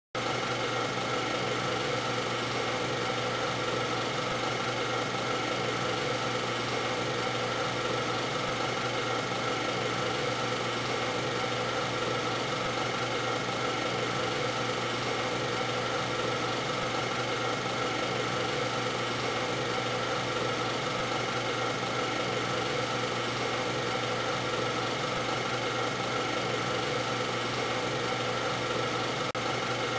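Film projector running steadily, a constant mechanical whir with a steady hum.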